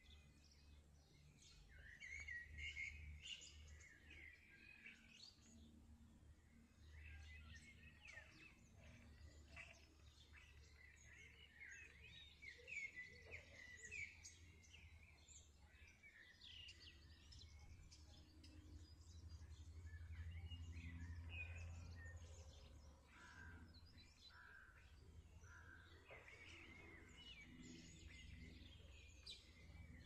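Faint outdoor ambience: small birds chirping and singing in quick short notes over a steady low rumble.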